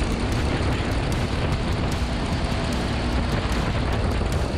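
Motorcycle at track speed: a steady rush of wind buffeting the microphone, with the engine running underneath.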